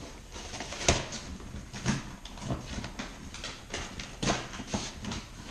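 A cardboard bicycle shipping box and its packing being worked open by hand: irregular rustling and scraping, with a sharp knock about a second in and several softer knocks after it.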